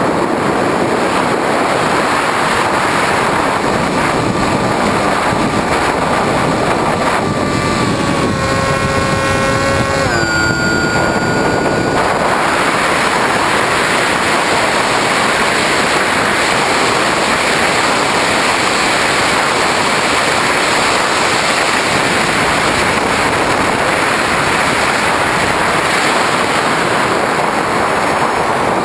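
Electric motor and propeller of a Skywalker FPV model plane, recorded onboard under heavy wind rush. The motor's steady whine shifts in pitch and fades out about ten seconds in as the throttle is pulled back, leaving mostly wind rush as the plane glides, and the whine comes back right at the end.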